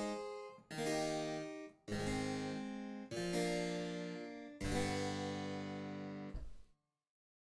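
Sampled Flemish harpsichord (8-foot stop) played from a software sampler: a run of plucked chords struck about once a second, each ringing and fading, the last dying away about six and a half seconds in.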